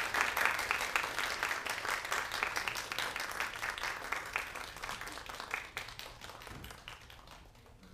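Audience applauding, full at first and gradually dying away over about seven seconds.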